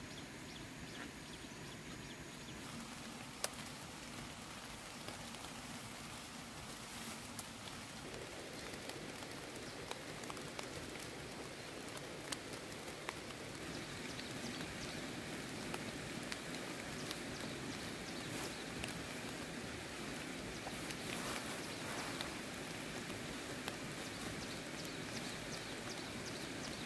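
Steady rustling of leafy cassava plants being handled and picked by hand, with scattered snaps and clicks of stems breaking.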